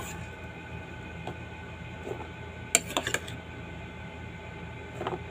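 Chopped vegetable salad being tossed in a large bowl with a serving spoon: a few short clinks and scrapes of the spoon against the bowl, clustered about three seconds in and again near the end, over a steady low background hum.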